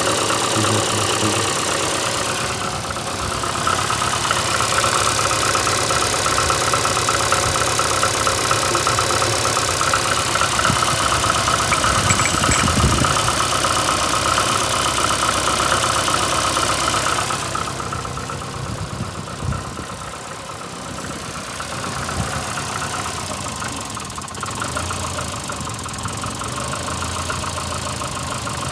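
VAZ-2115 eight-valve inline-four petrol engine idling with a knocking and rubbing noise, which the owner links to rough running (misfiring) that began after a head gasket blew on cylinder one. About two-thirds of the way through, the sound drops a little and turns duller.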